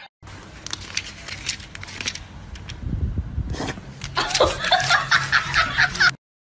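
A person laughing in quick bursts through the second half, after a few seconds of faint clicks and handling noise.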